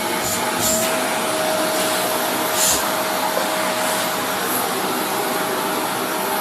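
Hoover Sprint Evo vacuum cleaner running steadily: rushing air with a constant motor whine, plus a couple of faint light clicks.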